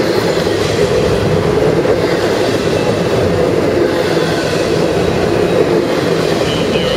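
Double-stack intermodal well cars of a CSX freight train rolling past close by: a steady, loud rumble and rattle of steel wheels on the rails.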